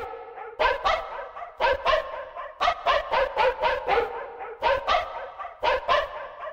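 Dogs barking: short, pitched barks repeated in an even rhythm, two or three a second.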